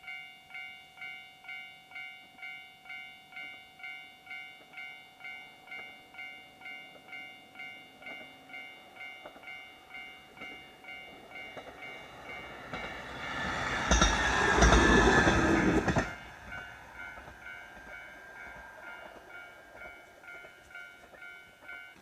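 Railway level-crossing warning bell clanging steadily, about two strokes a second. A KiHa 40 diesel railcar passes loudly from about thirteen to sixteen seconds in, and the bell keeps ringing after it has gone.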